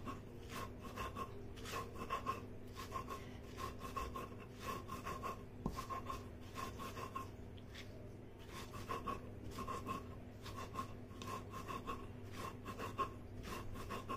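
Stone roller (batta) rubbed back and forth on a flat grinding stone (sil), crushing salt with green chillies: a rhythmic gritty scraping, several strokes a second, with a break of about a second halfway through.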